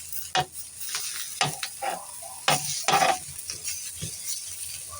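Food frying and sizzling in a pan, with a utensil scraping and stirring it in several separate strokes.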